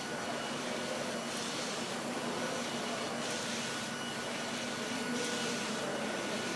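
Large-format flatbed digital inkjet printer running, its print-head carriage shuttling back and forth across the bed: a swell of hiss with each pass, about every two seconds, over a steady machine hum and faint whine.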